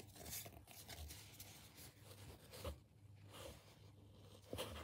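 Faint rubbing and sliding of trading cards being shuffled through by hand, with a couple of soft taps.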